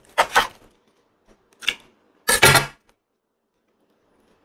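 Large knife cutting into a durian's thick spiky husk and the husk being pried apart by hand: three short scraping, cracking sounds, the loudest about two and a half seconds in.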